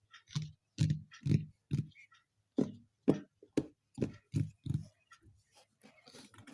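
A series of about ten sharp taps on a package, roughly two a second, with a short pause after the first four.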